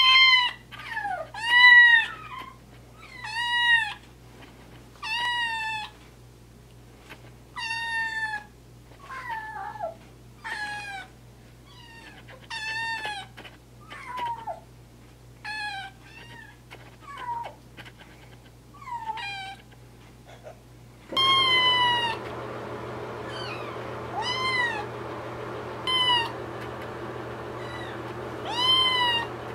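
Black-and-white tuxedo kitten meowing again and again, high arched calls about one a second, loudest near the start. About two-thirds of the way through, a steady background noise rises under the meows.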